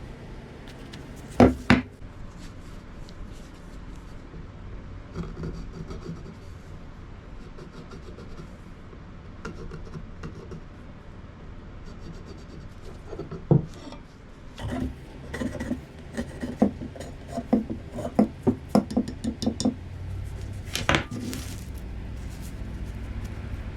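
Hand tools being worked on and knocked against a wooden axe handle: a few sharp knocks, with a run of short scraping strokes, about three a second, in the second half.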